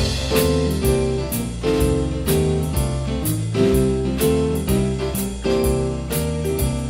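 Live jazz band playing a bluesy number: keyboard chords over a walking bass line, with light cymbal taps.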